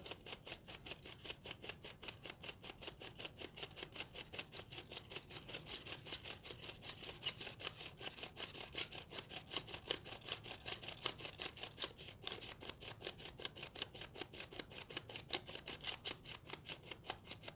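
Ratcheting of an Arista Premium plastic 35mm developing reel: its two halves are twisted back and forth, clicking in a quick, steady run, as the ball bearings grip the film and walk it into the spiral. The clicks stop near the end, once the roll is fully loaded.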